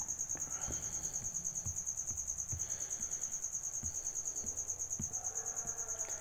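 A high-pitched cricket-like trill, pulsing steadily about six times a second, with a few faint soft taps underneath.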